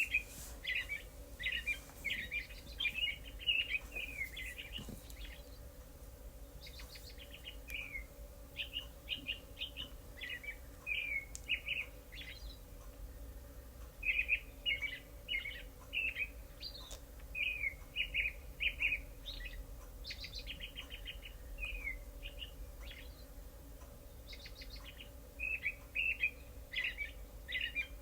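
Recorded birdsong soundscape from a sleep-sounds app being played back: several birds chirping and twittering in quick phrases of a few seconds each, with short pauses between them. A faint steady hum runs underneath.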